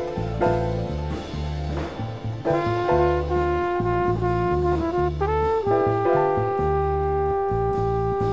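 Recorded jazz arrangement with a trumpet playing a slow melody of long held notes over a walking acoustic bass.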